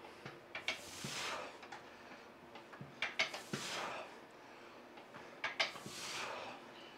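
Leg extension machine worked through repetitions: each rep begins with a few sharp metal clacks, followed by a swelling rushing slide as the machine moves. There are three reps, about two and a half seconds apart.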